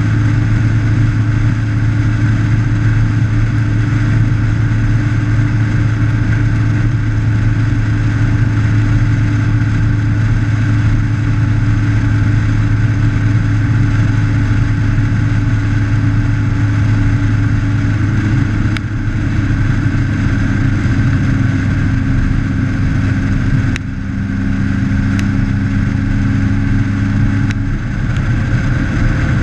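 Motorcycle engine running at a steady cruising speed, heard close up from the bike itself, under steady wind and road noise. The engine note shifts twice in the second half, and a car passes the other way near the end.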